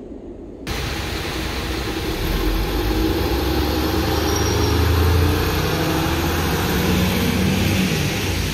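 Articulated city bus driving past on a rain-soaked street: engine drone with tyres hissing on the wet road over steady rain. It cuts in abruptly under a second in, after faint station room tone, and the engine is loudest around the middle.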